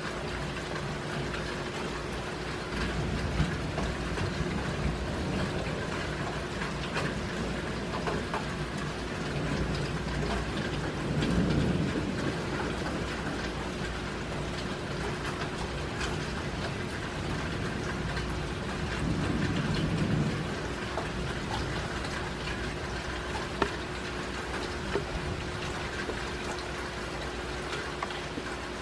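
Steady rain falling, with scattered sharp drops ticking on a surface. A few short low rumbles swell and fade, the loudest about a third of the way in and again about two thirds in.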